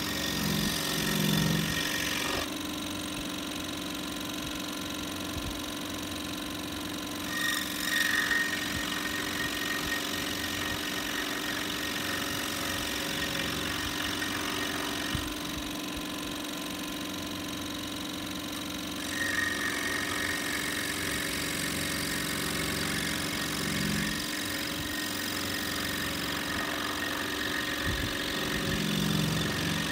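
Scroll saw running, its reciprocating blade cutting through a small block of wood with a steady, rapid buzz.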